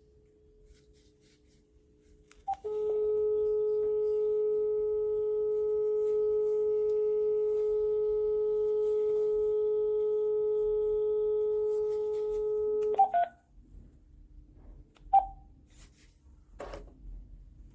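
Cordless phone handset: a key beep, then a steady dial tone for about ten seconds that stops with another beep and a click, and one more short key beep a couple of seconds later.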